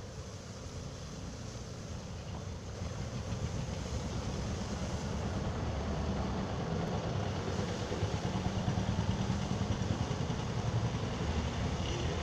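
Heat gun blowing steadily during plastic welding of a cracked plastic wheel-arch cladding, a whirring rumble with a hiss that grows louder about three seconds in.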